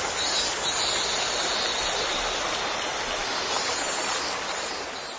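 Steady, even sound of river water flowing, fading slightly near the end.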